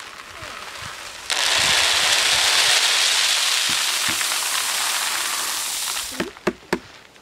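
Shelled maize kernels poured from a plastic basin held overhead, falling in a steady, dense rattling stream as the grain is winnowed. The pour starts about a second in and stops about a second before the end, leaving a few scattered clicks of the last kernels.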